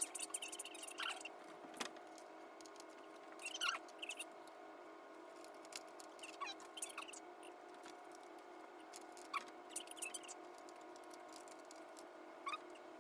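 Classroom audio fast-forwarded eight times: brief high chirps and squeaks scattered over a faint steady hum.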